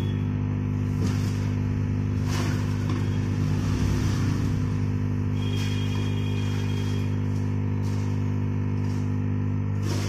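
Steady electrical mains hum, a stack of low even tones, with a few faint brief clicks and rustles about a second in, around two and a half seconds in, and near the end.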